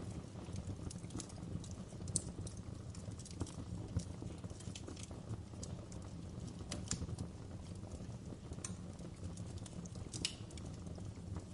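Fireplace fire crackling: irregular sharp pops and snaps over a steady low rumble of the flames, with a few louder pops about two and four seconds in.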